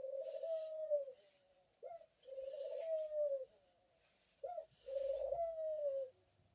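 Pet dove cooing: three repeated coos, each a short rising note followed by a longer held note that falls away at the end.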